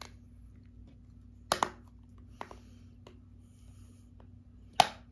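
iPhone 5c being snapped back together by hand: a few light clicks and taps of the display and plastic housing, then one sharp snap near the end as it closes.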